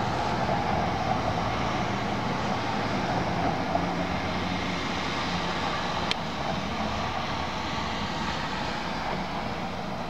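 Distant low drone: a steady rumble with faint low humming tones that swell and fade, which the recorder hears as mysterious horn sounds. A single sharp click about six seconds in.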